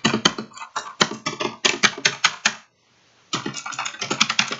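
Rapid, dense clattering clicks in two bouts, with a short pause between them about two and a half seconds in.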